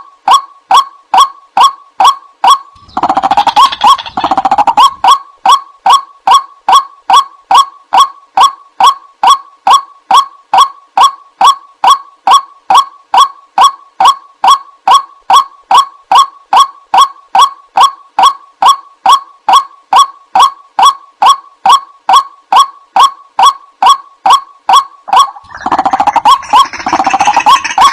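White-breasted waterhen calling: one monotonous note repeated about two and a half times a second, joined by a denser tangle of overlapping calls about three seconds in and again near the end.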